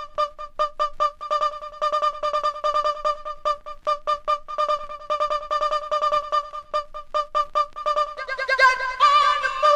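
Electronic music: a single held synthesizer note chopped into rapid, stuttering pulses, with a brighter chord of several notes coming in near the end and ringing out.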